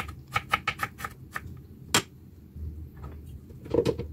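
Kitchen knife slicing shallots on a wooden cutting board: a quick run of sharp taps of the blade on the board in the first second and a half, then one louder knock about two seconds in, and a few softer knocks near the end.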